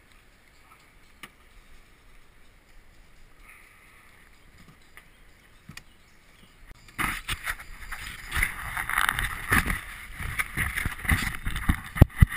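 Quiet at first with a few faint clicks, then, about seven seconds in, loud rustling, scraping and knocking close to the microphone: handling noise as the angler moves about in the boat.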